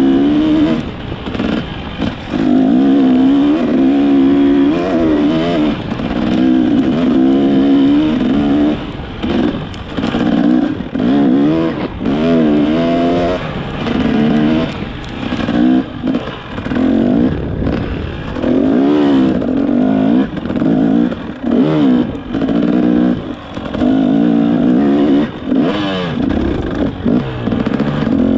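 Motorcycle engine running under way. Its pitch rises and falls over and over as the throttle is opened and closed and the gears change.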